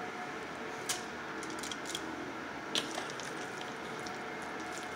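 Soft wet squishing of hands pinching and pressing raw ground chicken into patties, with two sharper pats about a second in and near three seconds in, over a steady faint background hum.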